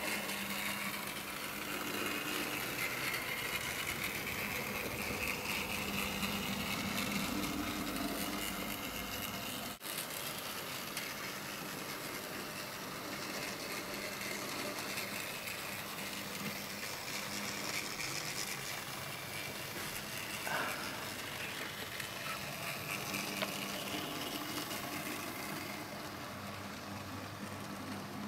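Dapol N gauge A3 model steam locomotive running along the track, its small electric motor giving a steady whirr with the rumble of wheels on rail. The sound briefly drops out about ten seconds in.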